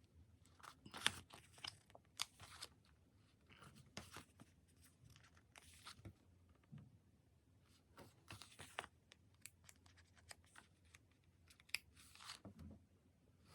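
Quiet paper and sticker handling: stickers peeled from their backing sheets and pressed onto diary pages. It comes as irregular soft peels, crinkles and light taps.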